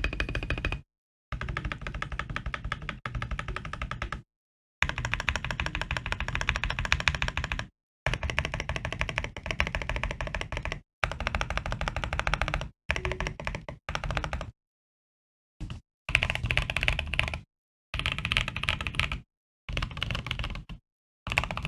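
Typing on an Akko Mod007 aluminium-case mechanical keyboard with lubed, filmed Tecsee Coffee Chip tactile switches on an FR4 plate: fast runs of keystrokes, broken by several short stretches of dead silence.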